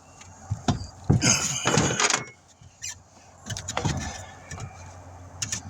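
Hand work on the inside of a tire being prepped for a patch: scattered clicks and knocks with a few brief scraping strokes, the longest about a second in and another near four seconds.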